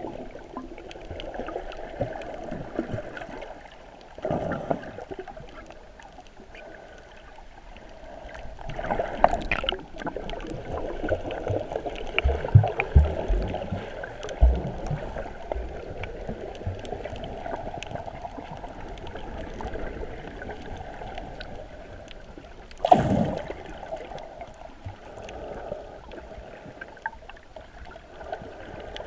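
Muffled underwater sound of water moving around a camera's waterproof housing, a steady gurgling wash. A few dull low knocks come around the middle, with louder swooshes about a third of the way in and again near the end.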